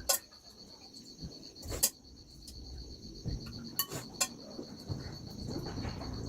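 Insects trilling steadily at a high pitch in a fast, even pulse. A few sharp clicks or snaps cut over it, the loudest a little under two seconds in, and a low rustling grows louder in the second half.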